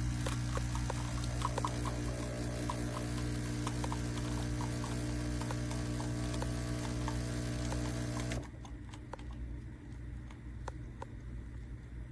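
Breville Bambino espresso machine's vibration pump running with a steady buzzing hum and light ticks, cutting off abruptly about eight seconds in.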